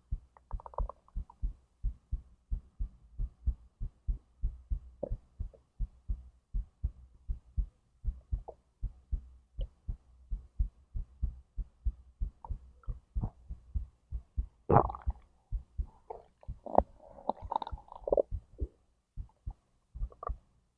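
Human heartbeat thumping steadily in lub-dub pairs, heard from the belly, with the stomach and intestines gurgling during digestion: one gurgle about three-quarters of the way through and a longer rumble just after it.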